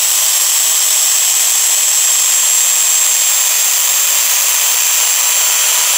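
Skil circular saw running at full speed with a steady high whine, trimming a thin sliver off the end of a hardwood pallet board.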